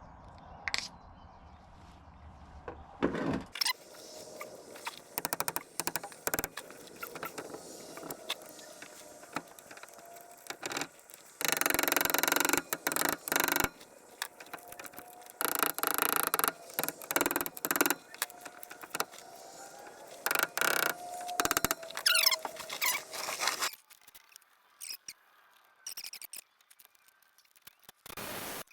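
Metal squealing and scraping with sharp clicks as a universal-joint bearing cap is worked out of the driveshaft yoke. It comes in several bursts of a second or two, with a rising squeal near the end, then stops a few seconds before the end.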